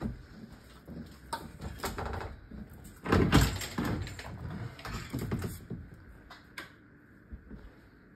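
Louvered bifold closet doors being handled and pushed shut: a series of knocks and clicks, with the loudest clatter about three seconds in.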